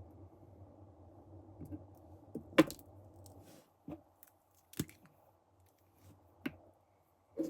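Small tools and parts handled on a workbench: a few sharp clicks and taps, the loudest about two and a half seconds in, over a low steady hum that stops about halfway through.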